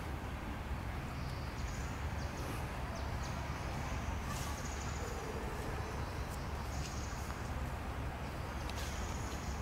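Outdoor ambience: a steady low rumble with faint high-pitched calls coming and going, and a few soft clicks.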